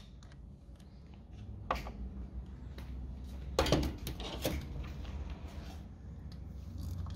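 Light metallic clinks and knocks from tools and parts being handled at a small motorcycle engine's cylinder head, a few scattered taps over a steady low hum.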